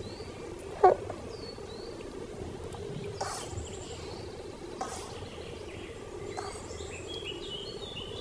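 Outdoor nature ambience: a steady drone of insects with small high bird chirps and one short call about a second in. A few soft scrapes sound around the middle, as a tiny trowel digs into gritty soil.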